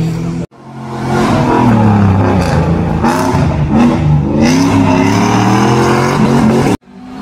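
Rally car engine revving hard as it drives past on a stage, its pitch rising and falling with throttle and gear changes. The sound cuts out abruptly about half a second in and again near the end.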